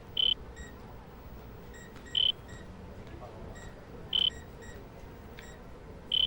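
Electronic medical monitor beeping: a short, high, single-pitched beep about every two seconds, over a faint steady background.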